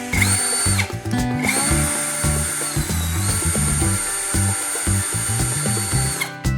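Electric motor running at high speed with a high-pitched whine, over background music. It makes a short burst near the start, stops, then runs for about five seconds, its pitch dipping briefly in the middle before recovering, and cuts off near the end.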